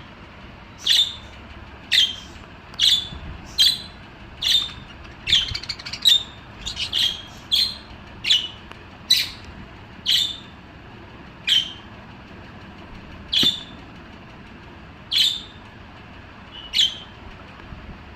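Budgerigar giving short, high chirping calls, about one a second, with a quicker run of calls around the middle and slower spacing toward the end.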